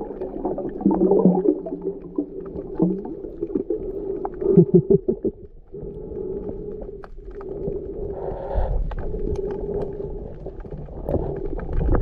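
Underwater sound through a diving camera: muffled low rumbling and water movement, with scattered sharp clicks and a cluster of heavy low thumps about four and a half seconds in. A steady low hum runs through the second half.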